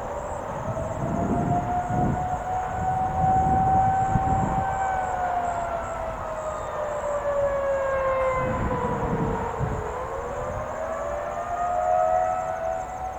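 Federal Signal 2001-SRNB and 2001-SRN mechanical tornado sirens sounding in the distance on their monthly test. Their pitch holds high, slides slowly down for about five seconds, then rises again, with several tones layered over each other.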